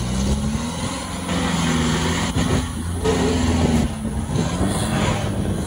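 Off-road 4x4 jeep engine revving hard under load as it climbs a steep dirt hill. The revs rise, hold high, dip briefly about four seconds in, then pick up again.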